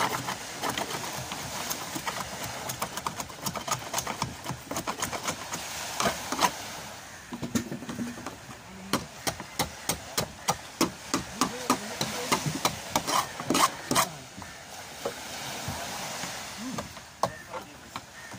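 Hand tools chipping at the fibreglass hull of a boat around a damaged patch: a run of sharp taps and scrapes, at times several a second, with a steel chisel struck by a claw hammer. The knocking eases off a little before the end.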